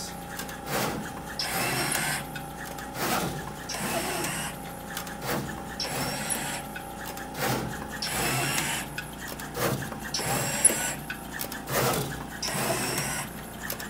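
DDM Novastar LS60V pick-and-place machine running, its head motors whirring and clicking in a repeating cycle about once a second as the head shuttles between the tape feeders and the board.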